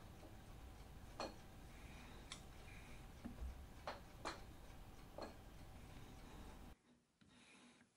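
Faint sharp clicks, roughly one a second, from shaping a slot in cast iron with a parting insert stroked by hand in a milling-machine quill, over a low hum. About 7 s in the background drops away abruptly.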